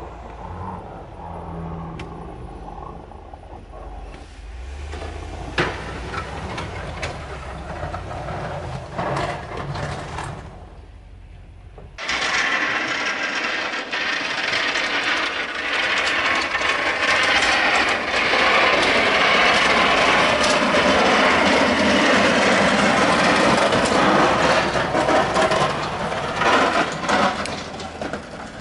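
Ram 2500 pickup's engine running at low revs as it plows snow, with scattered clicks and knocks. About twelve seconds in it gives way abruptly to a loud, steady rushing noise that fades near the end.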